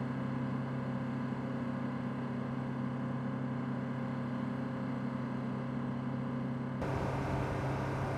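Steady mechanical hum of power equipment running beside a parked C-130 Hercules whose propellers are still, with a low held drone under an even hiss; the sound shifts slightly near the end.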